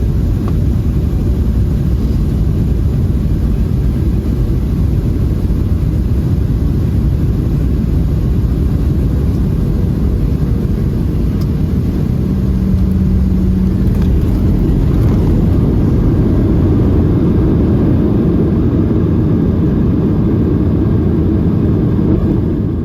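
Steady, loud low rumble of a Boeing 737-700 heard from inside the passenger cabin: jet engines and airflow, with no sharp events.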